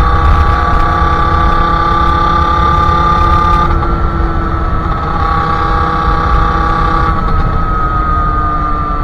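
Sherco SM-R 50's 50cc two-stroke engine with a KRM exhaust, running at high revs under way. The note breaks briefly about four seconds in and again about seven seconds in, then slowly falls in pitch. Wind rumble on the microphone.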